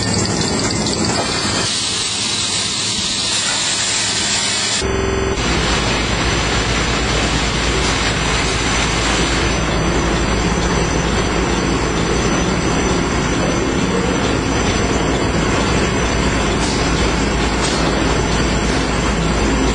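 Toilet-roll and kitchen-towel converting line running: a loud, steady mechanical din of rollers and paper running through the machine. About five seconds in the sound changes abruptly and gains a heavy low rumble.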